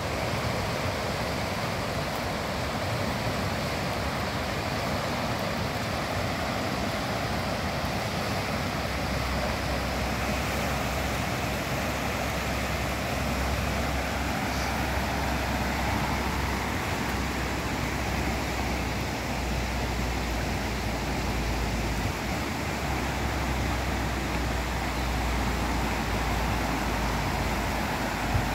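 Steady rush of a swollen, muddy river running high and fast after heavy rain, with a deeper low rumble from about a third of the way in.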